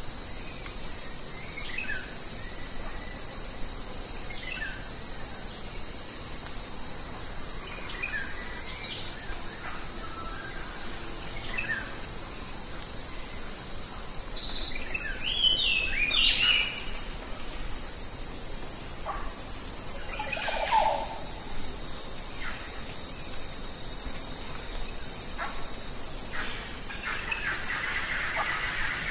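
Natural ambience: a steady high insect drone, like crickets, with birds giving short falling chirps every few seconds and a louder run of calls about halfway through.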